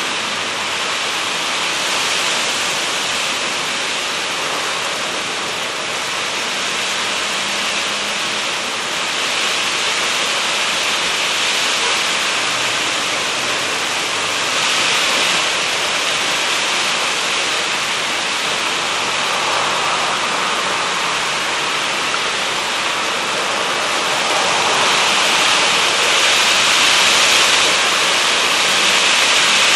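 Heavy rain and gusting wind of a passing cold front: a steady rushing hiss that swells with the gusts several times and is loudest near the end.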